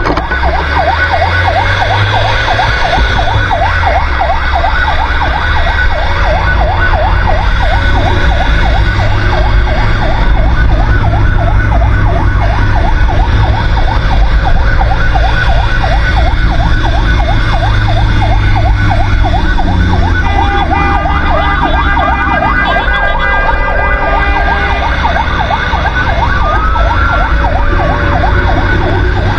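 Fire truck siren sounding in a fast repeating yelp, heard close up from the truck's roof while it drives, over a heavy low rumble. A slower rise-and-fall siren tone joins briefly twice.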